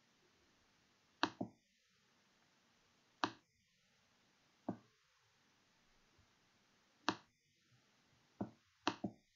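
Computer mouse clicking: about eight sharp clicks spaced irregularly, some in quick pairs, over a faint steady hiss.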